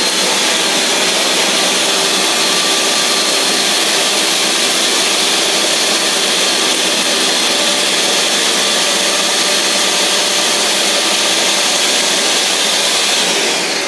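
Ninja countertop blender running at full speed, blending ice and fruit into a shake: a loud, steady whir that starts to wind down right at the end.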